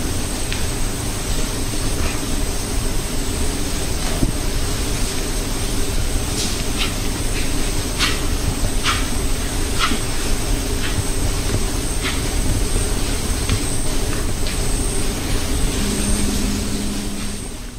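White-lipped peccary herd moving close by in forest undergrowth: a steady rumbling hiss under a constant high insect whine, with a run of sharp clacks between about six and ten seconds in.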